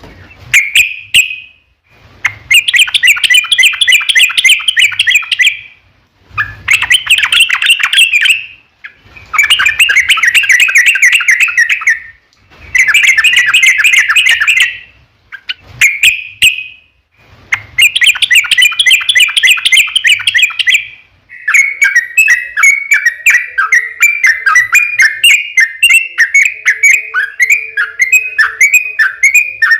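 Yellow-vented bulbul (trucukan) singing in loud bursts of rapid chattering notes, each lasting two to three seconds with short pauses between them. About two-thirds of the way through, the song turns into one long unbroken run of quick repeated chirps, each sliding down in pitch.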